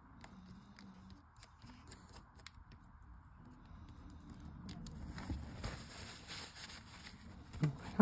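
Faint rustling and rubbing of fingertips smoothing a freshly glued paper image down onto a round magnet blank, growing somewhat louder over the last few seconds.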